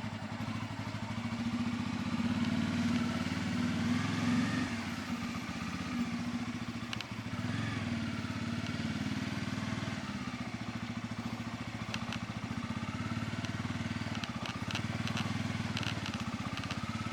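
Bajaj Pulsar N250's single-cylinder engine running as the motorcycle is ridden, its note rising and falling with the throttle. A few sharp ticks come in the later part.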